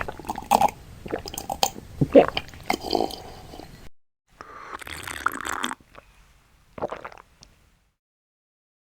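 A person gulping and swallowing a drink, with wet mouth clicks and throat gulps for about four seconds, then a breathy sound after a short pause and a shorter one about three seconds later.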